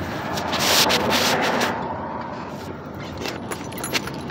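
Phone handling noise inside a car: a loud rubbing rush for about a second, then a few sharp clicks and bumps near the end.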